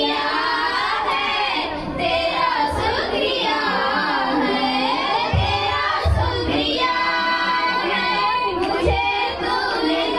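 A group of teenage girls singing a song together into handheld microphones, amplified through a PA, with a few short low thumps near the middle and toward the end.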